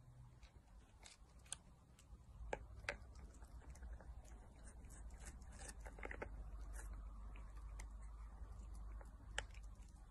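Faint crinkling and clicking of a plastic wrapper as a cat licks and bites at a tube held to its mouth, over a low steady hum that grows a little stronger a few seconds in.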